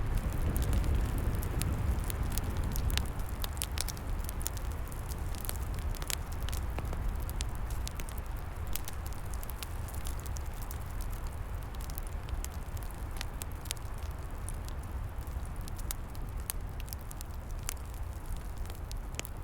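Wood fire burning, with frequent sharp irregular crackles and pops over a steady low rumble of flame and wind, the rumble easing off slightly over the stretch.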